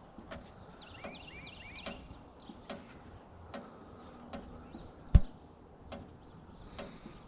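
Evenly spaced crisp steps in snow, about one every 0.8 seconds, with a quick run of high chirps about a second and a half in and a single heavy thump about five seconds in.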